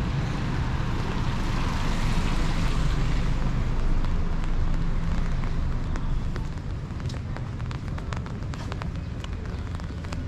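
A car passing on a wet street, its tyre hiss swelling over the first few seconds and fading, over a steady low rumble. Scattered sharp ticks follow in the second half.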